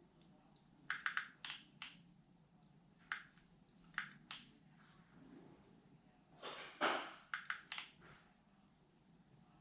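Irregular sharp clicks and taps of small hard objects being handled, some in quick clusters of three or four, with a short scraping rustle a little after halfway.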